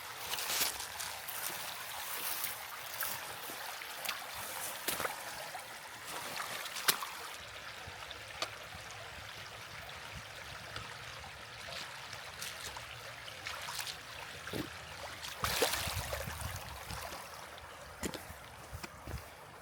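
Steady rushing of a shallow, rocky creek, with irregular clicks and splashes of footsteps on wet stones as it is waded.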